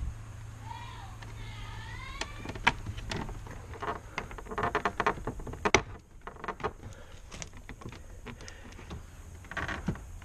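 Plastic interior trim being handled and fitted: irregular clicks and knocks, with a sharp snap now and then and a short run of rapid clicks about halfway through. A brief squeak of rising pitch comes in the first two seconds.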